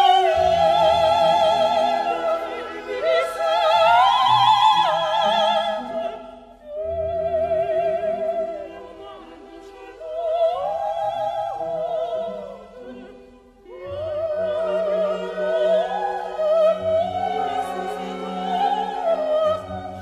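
Operatic music: a classical singer holding long notes with wide vibrato over orchestral accompaniment, with two brief lulls between phrases.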